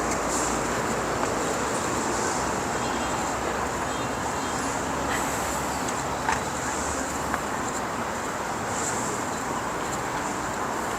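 Steady outdoor city ambience: a continuous hiss with distant traffic, and a couple of short clicks past the middle.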